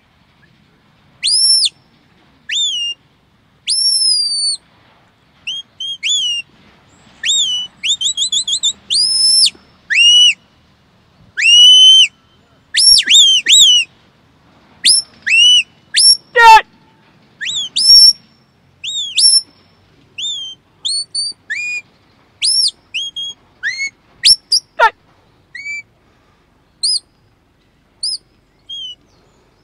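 A shepherd's whistle commands to a working sheepdog: many short, sharp whistled notes, some rising and some falling, with a quick warbling run about eight seconds in and long falling whistles around the middle and two-thirds of the way through. The notes steer the dog as it moves a small flock of sheep.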